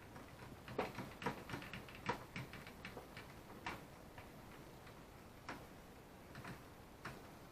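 Irregular light clicks and taps of small parts being handled while working on a cassette tape deck mechanism. There is a quick cluster in the first few seconds, then a few scattered clicks.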